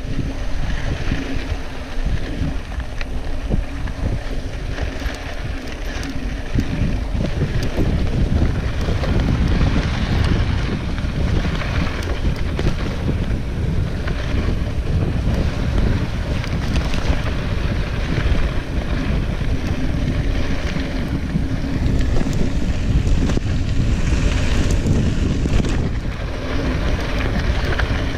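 Wind buffeting the action camera's microphone while a mountain bike rolls down a dry dirt trail, tyres rumbling over the ground, with frequent small rattles and knocks from the bike over bumps.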